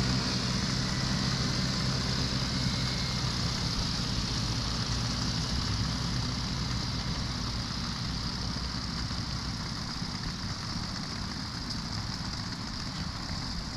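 Conner Beam Engine miniature locomotive running as a low engine drone that weakens over the first several seconds, as if moving away, under a steady high-pitched hiss.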